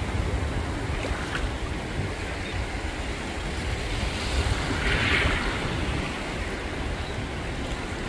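Gentle ocean surf washing and breaking in shallow water, with a low rumble of wind on the microphone; one wave swells louder about five seconds in.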